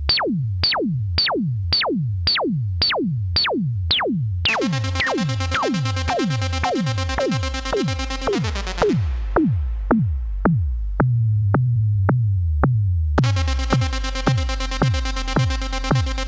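ARP Avatar analog synthesizer playing an electronic jam: short notes repeat about twice a second, each sweeping quickly down in pitch, over a low bass drone. A sustained buzzy tone comes in about four seconds in, drops out midway, and returns near the end.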